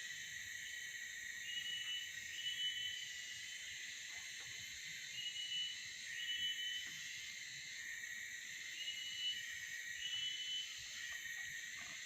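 Tropical forest insect chorus: a steady high buzzing hiss, with short high-pitched chirping notes repeating every second or two, often in pairs.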